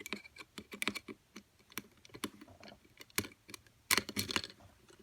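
Irregular light clicks and taps, with a denser flurry about four seconds in: small metal lock-picking tools being handled against a lever padlock held in a vise.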